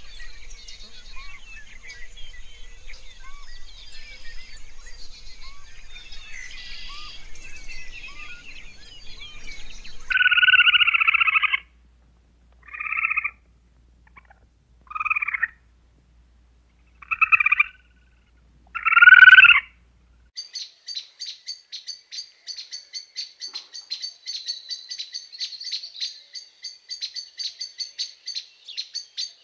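Animal calls in three parts. First, many small chirps over a faint hiss. From about ten seconds, a red squirrel gives five loud calls one or two seconds apart, and from about twenty seconds a hummingbird gives rapid high chirps, several a second.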